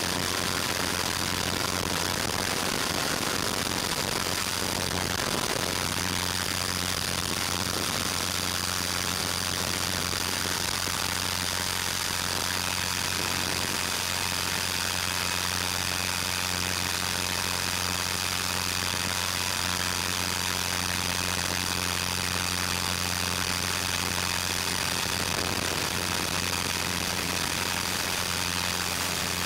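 Steady mechanical drone of a 450-size electric RC helicopter in flight, its brushless motor and rotor picked up on board and sent over the analog 5.8 GHz video link, under a constant hiss with several steady whining tones. A higher whine joins about halfway through.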